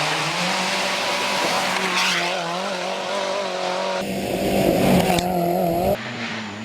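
Rally car launching from a gravel stage start: the engine is held at high revs, with wheelspin and gravel noise. The sound changes abruptly about four seconds in, and again near the end, dropping quieter, as the shots change.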